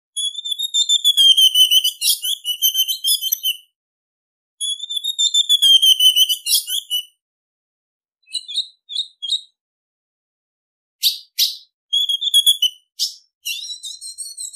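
Female ultramarine grosbeak (azulão) calling: two long high-pitched phrases of rapid notes, then three short notes and a run of sharp short calls near the end.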